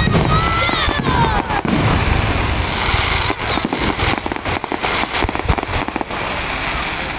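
Fireworks display: aerial shells going off one after another, with many quick bangs and crackles close together.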